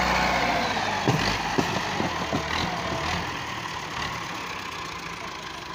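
Diesel farm tractor engine labouring under a heavy load in deep sand, then easing off about a second in and running on more quietly. A few sharp knocks come between about one and two and a half seconds in.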